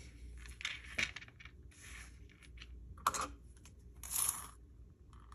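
Light clicks and rattles of a bead ball chain necklace being handled, with a short rustle about four seconds in.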